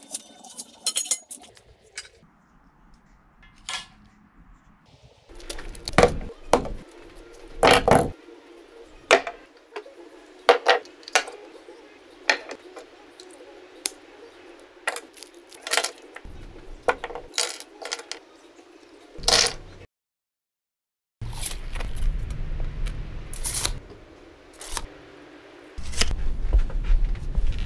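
Metal parts and tools being handled and set down: a string of sharp separate clinks, taps and scrapes, with a low rumble over the last few seconds.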